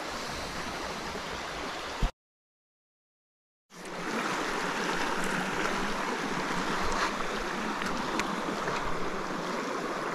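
Shallow mountain stream running over rocks: a steady rush of flowing water. About two seconds in there is a short knock, then a second and a half of dead silence before the stream sound returns.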